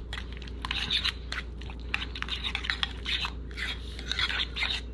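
A metal spoon stirring a thick mayonnaise dressing in a bowl: quick, irregular stirring strokes with short clicks of the spoon against the bowl, mixing in a freshly added spoonful of mayonnaise.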